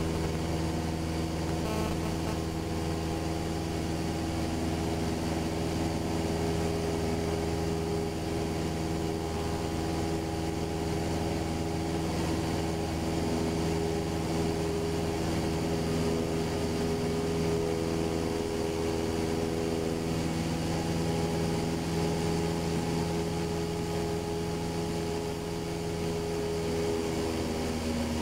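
Single-engine light aircraft's piston engine running steadily in the climb, heard from inside the cockpit as an even drone. A slight dip in level and pitch comes near the end.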